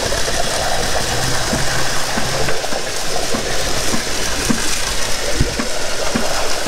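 Concrete pumper truck running steadily while ready-mix concrete is pumped through its hose into a foundation footing.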